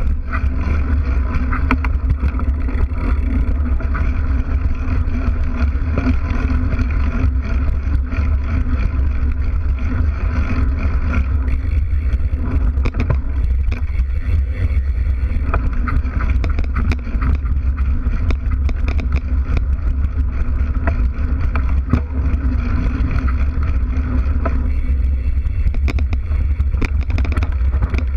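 Mountain bike rolling fast over a dirt trail, heard from a camera mounted by its knobby rear tyre: a steady deep rumble from the tyre and frame, with frequent small knocks and rattles over bumps.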